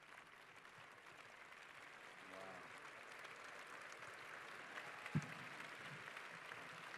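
Audience applauding, the clapping slowly swelling. There is a single low thump about five seconds in.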